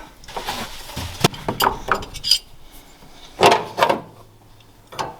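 Metal hand tools clinking and clattering against each other, with scattered clicks and a few louder knocks about three and a half seconds in, as a wrench is picked out of the tools.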